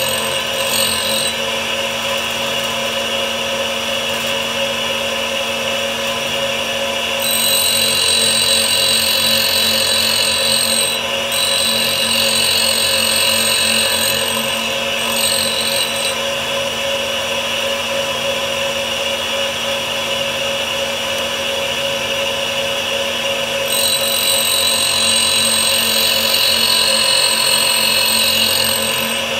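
Home-built tool grinder with a 100 mm diamond cup wheel, running steadily with a motor hum while a countersink's cutting edges are sharpened on the wheel. A higher grinding hiss comes and goes in long stretches: about a quarter of the way in to about halfway, and again near the end.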